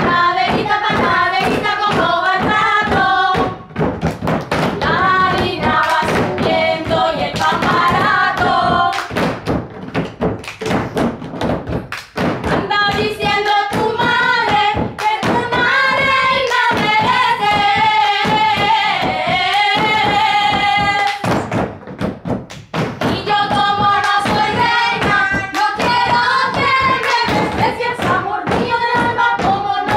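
A woman and girls singing a traditional Spanish panadera folk song, keeping a steady rhythm by slapping their palms on wooden tables.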